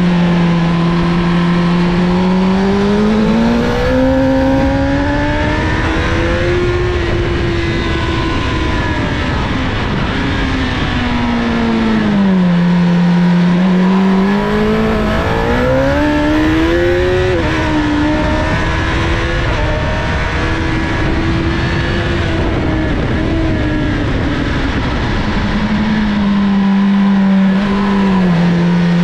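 2007 Honda CBR1000RR Fireblade's inline-four engine at track speed, pitch climbing through the gears and dropping on the brakes for corners, with sharp dips about twelve seconds in and again near the end. Wind rush over the bike-mounted microphone.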